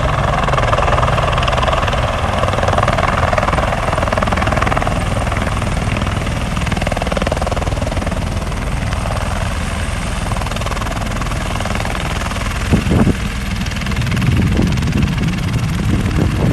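Sightseeing helicopter coming in to land, its rotor and engine running steadily and loudly, with a brief louder surge about thirteen seconds in.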